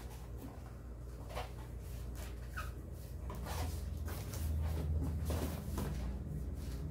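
Cardboard boxes and packing being handled and shifted: scattered light knocks and scrapes, then a low rumbling scrape in the second half as a box slides across cardboard.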